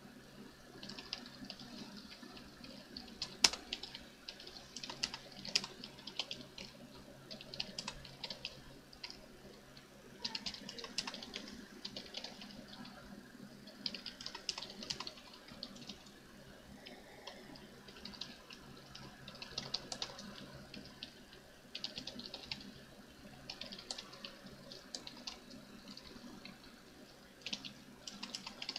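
Typing on a computer keyboard: bursts of quick keystrokes with short pauses between them, one sharper key click about three and a half seconds in, over a faint steady background hiss.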